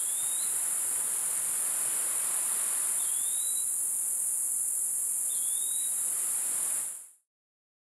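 Rainforest insects keeping up a steady high-pitched drone, with a bird giving a short rising whistle three times. The sound fades out near the end.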